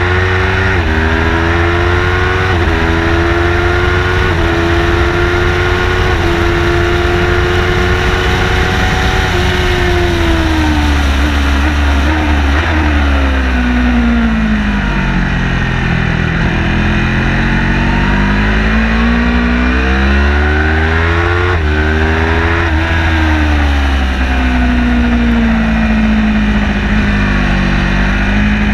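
Car engine heard onboard during a hot lap on a race track: it pulls through two upshifts near the start, holds a steady pitch, then winds down through the middle while braking for a corner. It revs up again with quick shifts, drops once more, and settles to a steady pitch near the end, with a constant low road and wind drone underneath.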